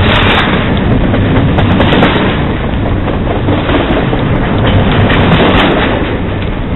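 Double-stack container freight train rushing past close by: a loud, continuous din of steel wheels running on the rails.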